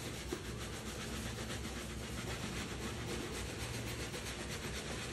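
Two small bristle brushes scrubbing white sneakers with soapy shoe cleaner: a steady, quick back-and-forth rubbing.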